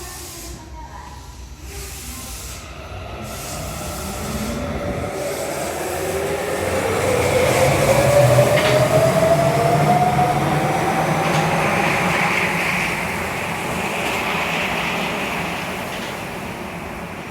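Namboku Line 5000 series subway train, set 519, pulling away: its Hitachi VVVF inverter-driven motors whine, rising steadily in pitch as it gathers speed, with the unusual 'hyu-iiin' whistle on acceleration that only this set makes, over a low running rumble. The sound is loudest about halfway through and fades slightly toward the end.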